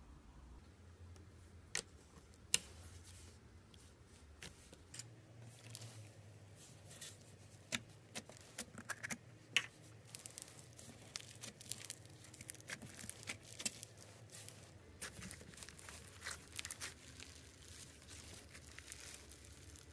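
Slime being handled, making quiet, irregular small clicks, pops and crackles that come thickest in the middle.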